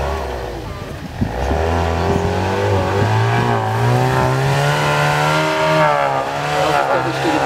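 Off-road buggy engine revving hard under load, its pitch climbing sharply about a second in, then wavering up and down with the throttle and dipping briefly near the end.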